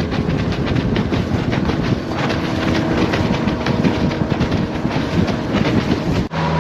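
Small Tracker fishing boat under way: its outboard motor running while the hull knocks and rattles rapidly over choppy water.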